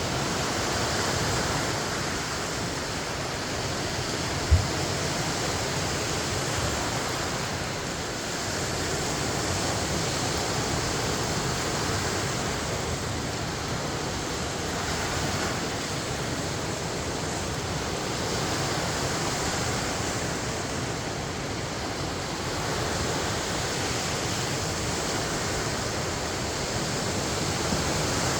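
Lake Michigan waves washing onto the shore, a steady rushing wash that swells and eases slowly. A single brief low thump about four and a half seconds in.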